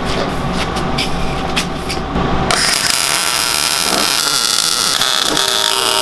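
Wire-feed welder's arc crackling and hissing as a tab is welded onto a steel tube frame. It starts suddenly about two and a half seconds in and runs on steadily. Before it there is a steady low hum with scattered clicks.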